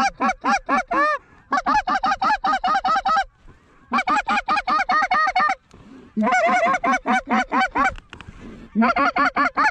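Goose call blown by hand: runs of rapid, evenly paced clucks, about six notes a second, repeated in about five bursts of one and a half to two seconds with short pauses between.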